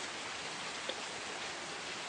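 Steady rain falling, with one distinct drop striking a little before the middle.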